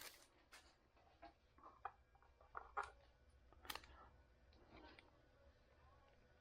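Near silence with a few faint clicks and rustles of trading cards being handled, the clearest a little under three seconds in and again at about four seconds.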